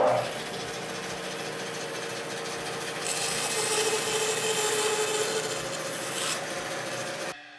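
Bandsaw with a 3/4-inch blade running, then sawing into a softwood 2x6 board for a test cut: the sound gets louder and hissier from about three seconds in while the blade is in the wood, easing off a little after six seconds. It cuts off suddenly near the end.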